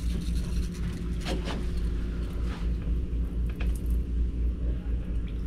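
Hissing spurts of a hand pump sprayer misting liquid cleaner onto a boat hull, mostly in the first couple of seconds, over a steady low rumble and hum.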